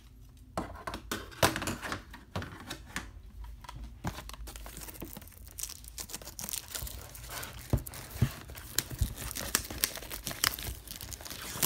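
Clear plastic shrink wrap being picked at, torn and peeled by hand off a cardboard box set, crackling and crinkling with irregular sharp snaps.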